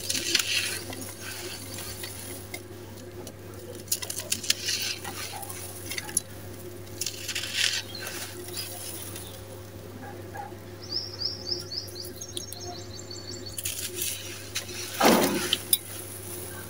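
Dry, gritty sand-cement crumbled between the fingers, its grains crunching and pouring out in repeated hissing rushes, with a louder burst near the end.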